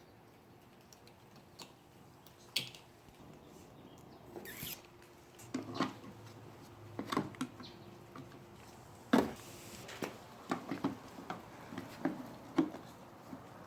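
Handling and assembly of a plastic ride-on toy car's parts: scattered clicks and knocks, about a dozen in all, with a short swish about four and a half seconds in and the loudest knock about nine seconds in.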